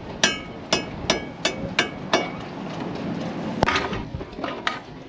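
Hammer tapping a boom gooseneck fitting into place on a sailboat mast: about half a dozen quick metallic strikes, roughly three a second, each with a short ring. Then a single sharper knock comes about three and a half seconds in, followed by a couple of lighter taps.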